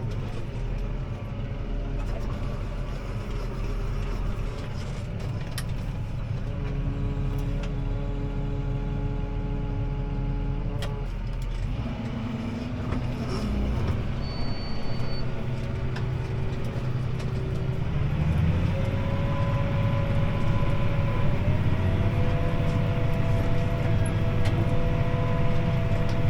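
CLAAS ARION 650 tractor's six-cylinder diesel running under load, heard from inside the cab while it pulls a disc harrow. A steady low drone, with the engine note stepping up in pitch twice in the second half.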